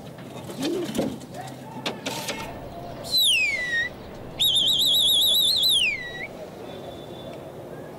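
A man's loud two-finger whistle: a single high whistle sliding down in pitch, then after a short pause a longer, rapidly warbling whistle that ends in a downward slide. It is a pigeon keeper's whistle sending his flock up into the air.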